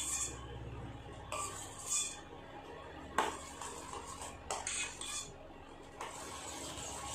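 Steel spoon stirring and scraping round the bottom of a stainless steel pan of milk thickening with cornflour, in irregular strokes. The pan is stirred constantly so the thickening milk does not stick to the bottom and burn.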